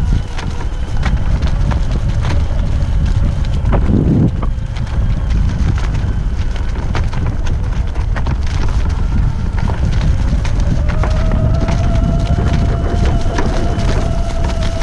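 1000 W off-road electric scooter ridden over rough, bumpy ground: heavy wind buffeting on the microphone and rumble with frequent rattles from the frame and tyres, and a thin motor whine that comes up about ten seconds in and then holds steady.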